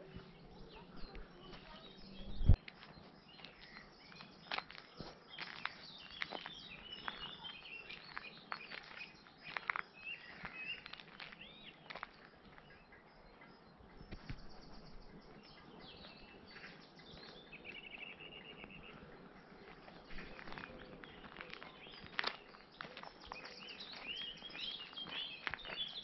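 Footsteps crunching on a dry woodland path with small crackling clicks, while songbirds chirp and call throughout. A single loud sharp crack about two and a half seconds in.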